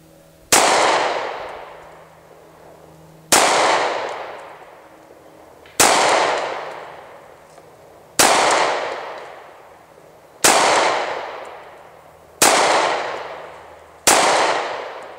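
Seven shots from a Rock Island Armory 1911 .45 ACP pistol, fired at a slow, even pace about two to two and a half seconds apart, each followed by a long fading echo.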